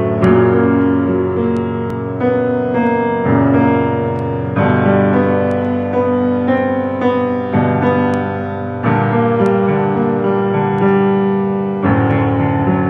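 Grand piano playing a slow passage of chords and melody, with the notes changing about once a second.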